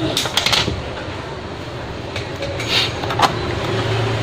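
Short clicks and light scraping of small plastic and metal laptop parts being handled and fitted during a drive swap: a quick cluster about half a second in and a couple more near the end, over a steady background hum.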